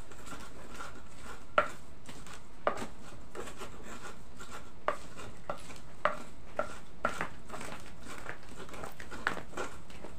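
Pestle grinding a spice paste of chilies, shallots and garlic in a cobek mortar: irregular knocks of the pestle on the mortar between scraping rubs, the loudest about one and a half seconds in and again about six seconds in.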